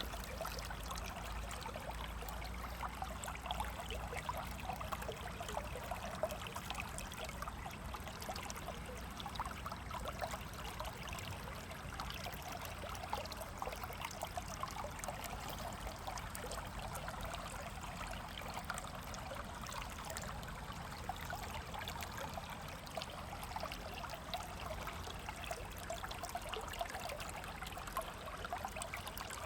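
A river flowing steadily, with water trickling and splashing over rocks. The level holds even throughout, with a low rumble beneath.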